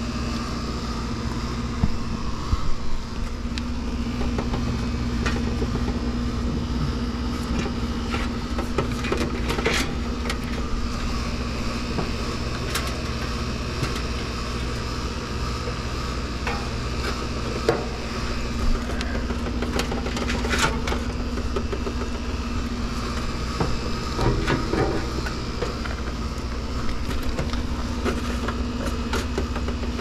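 A steady machine hum with scattered short metallic clinks and knocks, as of hand tools handling metal parts.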